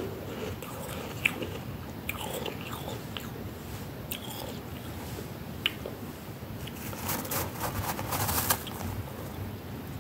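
Flaky freezer frost crunching and crackling as it is chewed, in crisp irregular crackles, with a denser run of crackles about seven to eight and a half seconds in.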